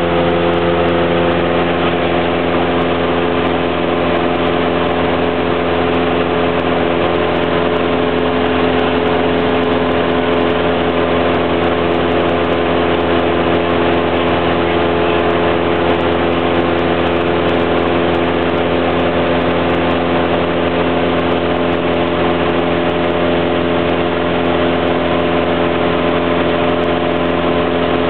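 Cessna 172's piston engine and propeller droning steadily in flight, heard inside the cabin, one even pitch under a constant hiss.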